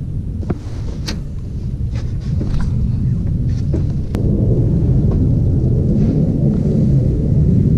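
Steady low rumbling noise with several light, sharp clicks in the first half; the rumble grows louder about four seconds in.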